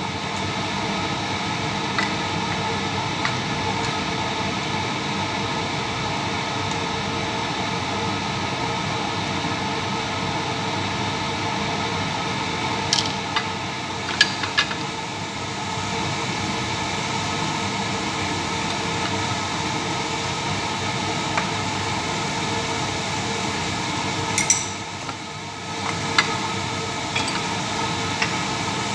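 Steady frying noise from chopped tomatoes cooking in a stainless frying pan on a gas burner. A few sharp clicks and clinks of a spatula and a glass spice jar come about halfway through and again near the end.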